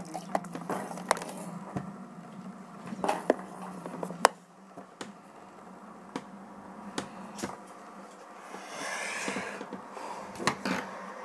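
Scattered clicks and knocks of hard plastic parts on a Fisher-Price toy playhouse being handled, over a low steady hum, with a short rushing swell about nine seconds in.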